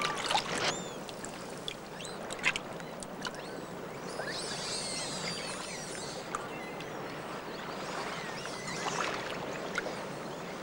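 Steady rush of flowing water around the volcanic hot-spring pools, with scattered high, thin chirping and twittering calls over it, busiest about four to six seconds in.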